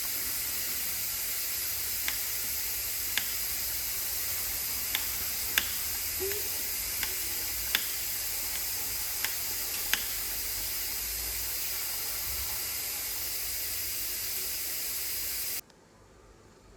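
Aqua Blast vapour-blasting machine spraying: a steady hiss of compressed air and water with a few faint ticks, cutting off suddenly near the end.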